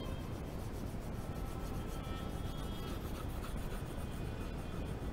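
Coloured pencil shading on drawing paper: a steady scratchy rubbing made of rapid, even back-and-forth strokes.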